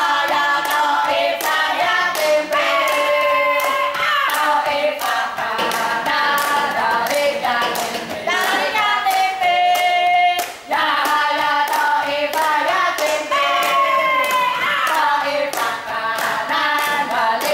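A group of voices singing a chant together while clapping along in a steady rhythm, about two claps a second, with a brief break in the singing a little past halfway.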